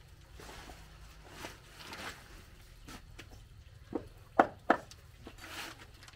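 A large knife striking a wooden chopping block three times around the middle of the clip, the last two sharp knocks about a third of a second apart and the loudest. Soft rustling of leafy stalks and plastic sheeting comes before and after them.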